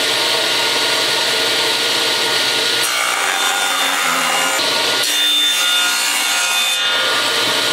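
Table saw cutting a stair riser board to size: one continuous cut, with a steady motor whine under the noise of the blade in the wood.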